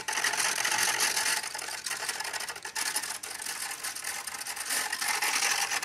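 Micro servos of an E-flite Hyper Taxi's AS3X three-axis stabilizer whirring with a rapid, uneven ticking as they hunt: the gyro system making constant small corrections to the control surfaces.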